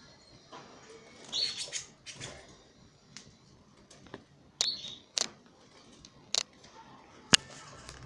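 Pet canaries giving a few short chirps, with scattered sharp clicks and taps from the cage and its clip-on bath, the loudest near the end.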